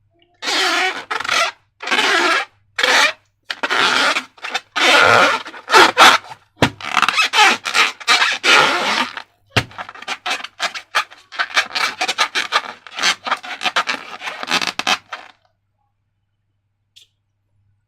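Repeated rubbing and scraping strokes from slime-making handling. Separate half-second strokes come first, then a quicker run of short scratchy strokes from about six seconds in, stopping about three seconds before the end.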